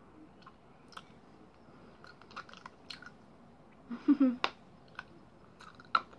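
Mouth sounds of someone eating a hard Gobstopper candy: scattered small clicks and smacks of the candy against the teeth, with a louder burst of mouth noise about four seconds in.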